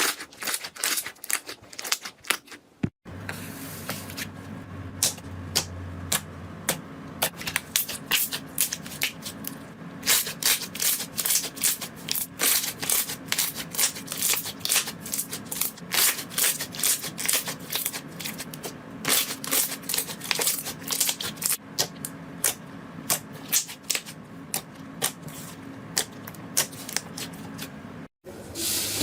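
Slime being pressed and squeezed, giving rapid, irregular crackling and clicking pops. A faint steady hum lies under it, and the sound cuts out briefly twice, about three seconds in and near the end.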